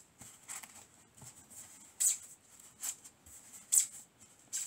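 Foam parts of a toy glider being pushed and worked together, with about five short scratchy rubbing sounds spread over a few seconds.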